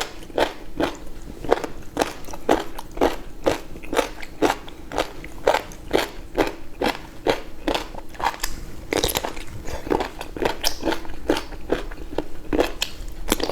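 Close-up mukbang eating sounds: a person chewing seafood with wet, crackly bites and smacks at a steady pace of about two a second, over a faint steady hum.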